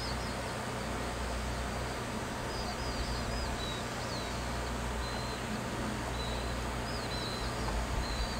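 Small birds giving little runs of short, high chirps several times over a steady outdoor rushing noise with a low rumble.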